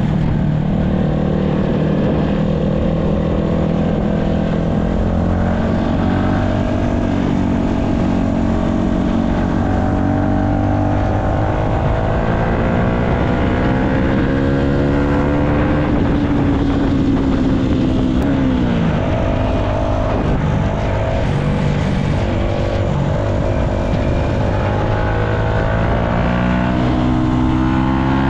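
Yamaha MT-125's single-cylinder four-stroke engine running under way. Its pitch climbs steadily with the revs for several seconds, drops sharply about two-thirds of the way in as the throttle closes, then climbs again near the end.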